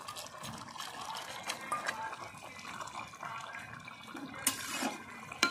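Spinach and vegetable curry bubbling at a boil in a steel kadai, with scattered small pops and two sharp clicks near the end.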